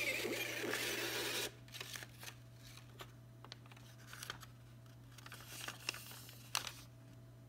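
A Zebra ZQ520 mobile thermal printer runs for about two seconds as it feeds out the printed invoice. The receipt paper then rustles and is torn off at the printer's tear bar, with a few sharp clicks near the end.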